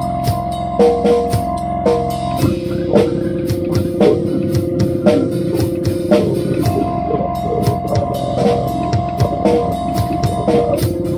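Rock music: a drum kit played with kick and snare in a steady beat, over long held chords that change about every four seconds.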